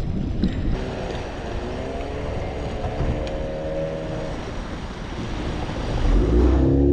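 Small fishing boat under engine power running through choppy sea, with steady wind and wave noise.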